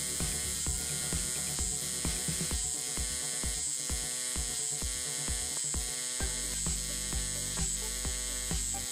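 Pulsed AC TIG welding arc on thin aluminum sheet: a steady electric buzz that pulses about three times a second as the current swings between peak and background. The tone of the buzz changes about six seconds in.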